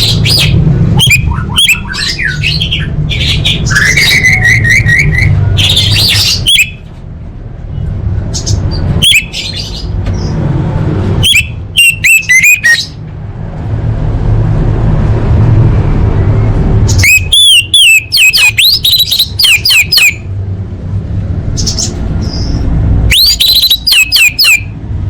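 Orange-headed thrush singing in separate bursts of quick, varied whistled phrases, some made of fast repeated notes, with short pauses between them. A steady low rumble runs underneath.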